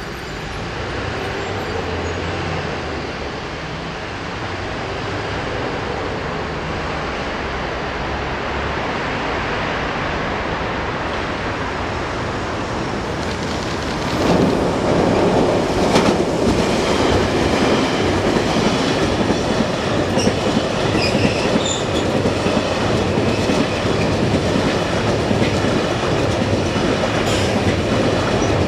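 An M250 series Super Rail Cargo electric freight train approaches and passes close by. Its running noise grows as it nears, jumps much louder about halfway through as it draws level, then holds as a steady rolling clatter of wheels on rail while the container wagons go by.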